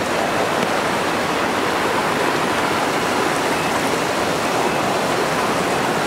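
Shallow rocky stream rushing over stones in small rapids, a steady rush of water.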